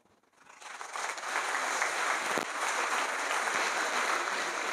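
Audience applauding. The clapping starts about half a second in and quickly swells to a steady round of applause.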